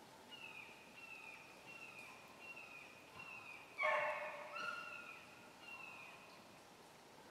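Faint rabbit-hunting dogs barking on a rabbit's trail, a steady run of short falling barks about one and a half a second, with one louder, fuller bark about halfway through. The barking means the dogs are still running the rabbit.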